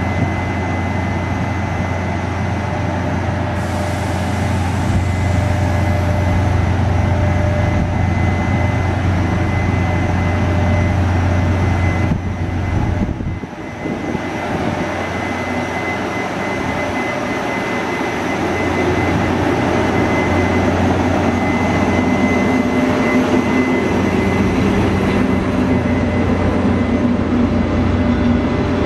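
GE E42C electric locomotive pulling a passenger train out of the station and drawing past at low speed: a steady low drone with a thin high whine, dipping briefly about halfway through. Then a heavier rolling rumble as the locomotive and its coaches come alongside.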